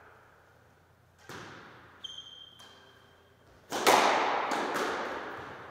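Squash ball and racket in an echoing squash court: a single knock about a second in, then a loud, sharp racket strike on the serve a little past halfway, followed by a few quicker knocks as the ball comes off the walls and floor.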